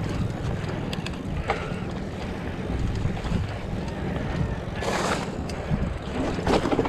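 Wind buffeting the microphone over the rumble and rattle of a mountain bike riding a rough trail. Scattered sharp clicks run through it, with two louder rushes of noise in the second half.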